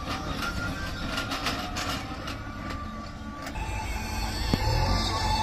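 A tractor and its trolley rattle and clank over a rough dirt track, over a steady diesel engine rumble. About three and a half seconds in the knocking drops away and the engine rumble grows louder as the tractor comes close.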